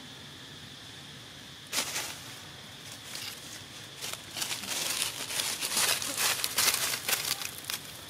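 Dry fallen leaves crunching and rustling: a short crackle about two seconds in, then a denser run of crackling from about four and a half seconds until near the end.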